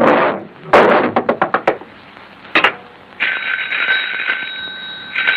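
Cartoon sound effects: a short noisy burst, then a quick rattle of about eight clicks, and another short burst. From a little past halfway an old telephone bell rings steadily.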